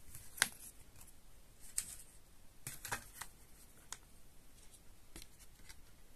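Hands handling a CD's paper-and-card packaging and booklet: faint handling noise with a handful of short taps and clicks, the sharpest about half a second in and a small cluster about three seconds in.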